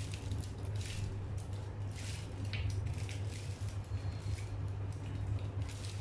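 Aluminium foil crinkling and crackling in irregular bursts as it is folded and pressed by hand around a small lamp to shape a vessel, with a steady low hum underneath.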